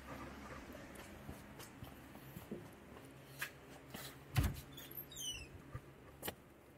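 Footsteps and handling noises as a door is opened by its knob: small clicks and knocks, a thump about four and a half seconds in as the latch and door go, and a short high falling squeak just after.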